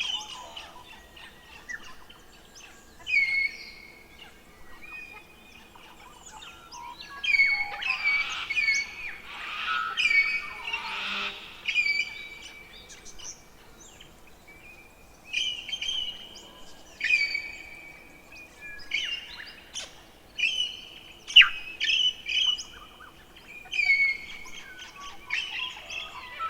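Forest songbirds singing: short clear phrases repeated every second or two, densest for a few seconds about a third of the way in. A faint steady hum lies underneath.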